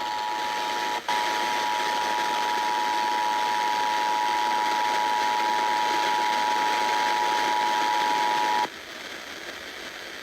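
Emergency Alert System attention signal: the steady two-tone alarm (853 and 960 Hz sounded together) over broadcast hiss, marking the start of a new alert. It drops out for an instant about a second in and cuts off abruptly near the end, leaving only hiss.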